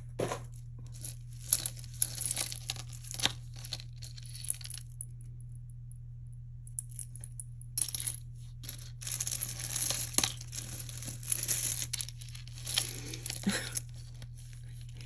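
Small clicks and clinks of beads and jewelry being handled on a tabletop, with stretches of rustling, over a steady low hum.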